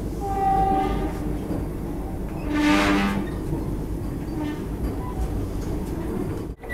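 Train horn blasts over the steady rumble of an electric Vande Bharat train running through a station, heard from inside the front coach. A short blast comes about half a second in, a louder one near three seconds, and a fainter one later.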